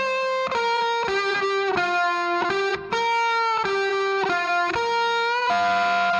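Background music: an electric guitar plays a melody of held, sustained notes with distortion, the notes changing about every half second to second, with a brief gap a little before the midpoint.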